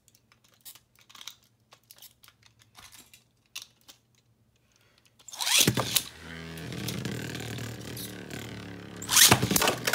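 Small plastic clicks and rattles, then about five and a half seconds in Astral Spriggan and Savior Valkyrie Beyblade Burst tops are launched into a plastic stadium with a sudden rip. They spin with a steady hum, and near the end they clash with loud, sharp hits as one is knocked out.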